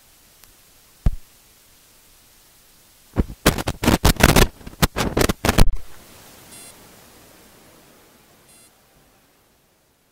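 Steady faint hiss with a single click about a second in, then a burst of loud crackles and pops lasting about two and a half seconds; the hiss then fades out.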